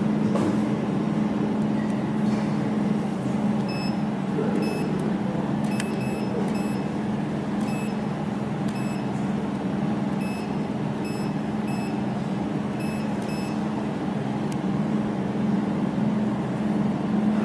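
Steady hum of a running jewelry laser welding machine. From about 4 to 13 seconds in, a dozen or so short electronic beeps sound as keys on its touchscreen control panel are pressed.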